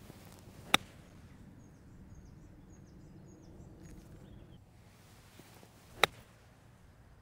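Two crisp clicks of a 54-degree wedge striking a golf ball on pitch shots, the first within the first second and the second about five seconds later. Between them there is a low steady background of wind and faint bird chirps.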